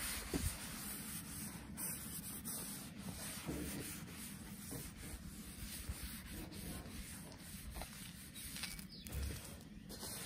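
A wad of paper towels gripped in tongs being rubbed back and forth across the hot, oiled steel top of a Blackstone griddle, a steady rough wiping noise with small ticks, as a thin seasoning coat of oil is spread.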